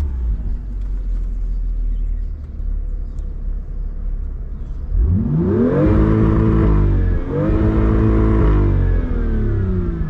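BMW M2's engine running at a steady low rumble, then revving up about five seconds in, holding, dipping briefly and climbing again before the revs fall off near the end.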